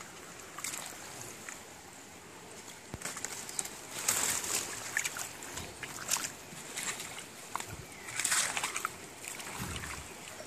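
Shallow stream water sloshing and splashing around feet in flip-flops wading over stones, in irregular bursts, the loudest about four and eight seconds in.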